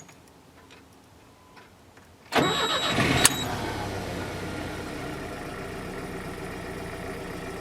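The Gazelle's 2.9-litre petrol engine being started: a brief crank about two seconds in, a rev as it catches, then a steady idle.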